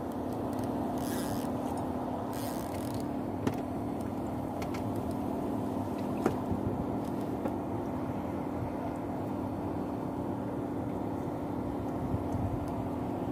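Boat engine running with a steady, even hum, with a few light clicks about three and six seconds in.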